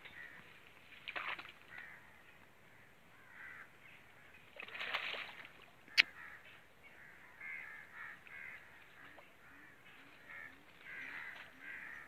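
Birds calling again and again in the background, with water splashing about a second in and again around five seconds as a man wades and fishes. A single sharp click sounds at about six seconds.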